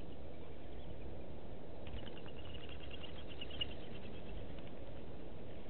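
Steady low outdoor background noise, with a bird's rapid series of short, high chirping notes for about two and a half seconds in the middle.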